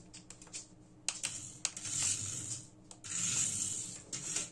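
Amewi 21079 1:67 mini RC rally car's tiny electric drive motor whirring in two bursts of about a second each as it drives. Several sharp clicks come in between.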